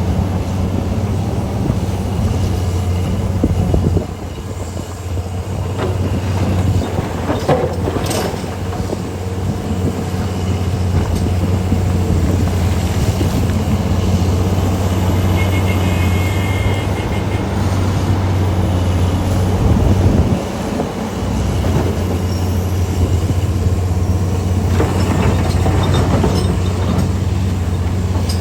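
Heavy mining machines at work: the diesel engines of a Komatsu PC800 excavator and HD465 haul trucks make a steady deep drone. The drone dips briefly about four seconds in and again about twenty seconds in. There is a sharp knock about eight seconds in and fainter knocks near the end.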